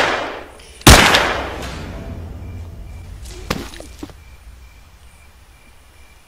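A single pistol shot about a second in, ringing out and fading over the next two seconds. A softer knock follows about three and a half seconds in.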